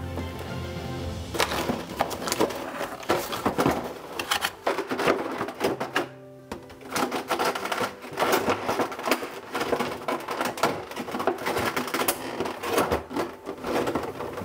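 Clear plastic blister tray crinkling and clacking in quick irregular bursts as it is handled and slid out of a cardboard box, starting about a second and a half in. Background music plays underneath.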